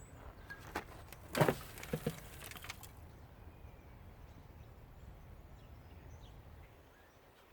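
A handful of short knocks and clinks from metal parts of a central air conditioning unit being handled, bunched in the first few seconds, the loudest about a second and a half in; after that only faint low background noise.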